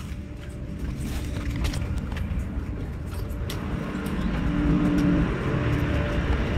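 Steady low rumble of a ship's machinery below decks, with scattered sharp clicks and knocks.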